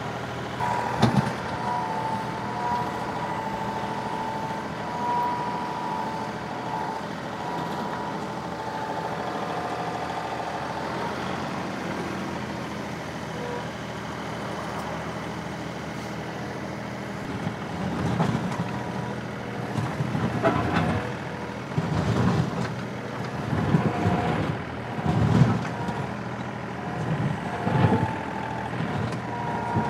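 John Deere 2038R compact tractor's three-cylinder diesel engine running steadily while its backhoe works a ditch. In the second half it surges in a run of loud bursts every second or two, the sound of the engine loading as the bucket digs.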